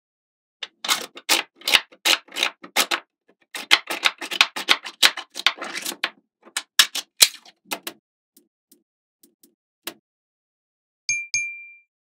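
Small magnetic balls clicking and snapping against each other as hands press them into a curved wall, a rapid, uneven run of sharp clicks for about seven seconds. Near the end a short metallic ding rings out.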